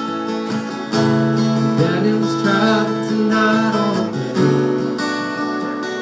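Steel-string acoustic guitar strummed in a steady rhythm, playing chords of a song live.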